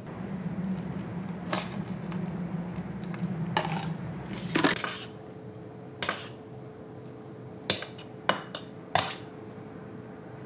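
Kitchen clatter of utensils and containers knocking on a work counter during crepe making: about seven sharp clinks and knocks. Under them is a steady low hum that gives way about halfway through to a faint steady tone.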